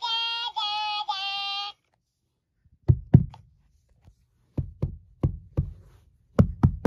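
Talking plush parrot toy repeating "da, da, da" in a high, sped-up voice for under two seconds. After a short pause comes a string of irregular soft knocks, several close together.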